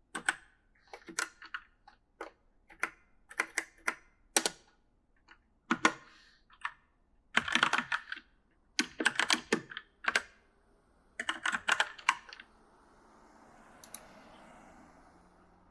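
Keys clacking on an E-Element mechanical gaming keyboard, typed in uneven bursts of several quick strokes with short pauses between them. The typing stops about twelve seconds in, leaving a soft hiss.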